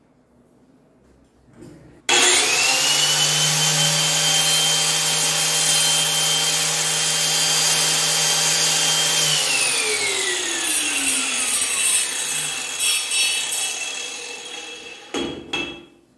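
Corded angle grinder with a masonry-cutting disc switched on about two seconds in, its whine rising quickly to full speed and holding steady, then switched off about nine seconds in and winding down with a falling pitch, followed by a clunk near the end.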